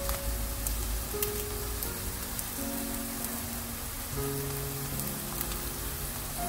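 Zucchini pancake frying in oil in a pan, a steady sizzle, under soft background music with held notes.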